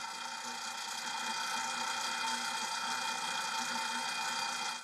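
Old commercial stand mixer running, its electric motor and gearing giving a steady hum with several fixed tones while the flat beater kneads suhama dough. The sound cuts off suddenly at the end.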